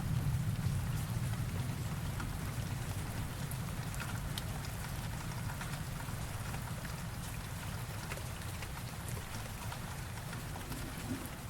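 Steady rain falling, with scattered sharp drop ticks, over a low thunder rumble that dies away over the first few seconds.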